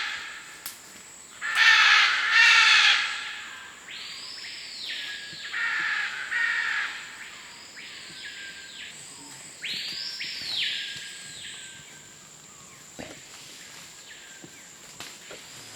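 Birds calling: two loud, harsh squawks about two seconds in, followed by a run of quieter arching calls that rise and fall, repeated roughly every second.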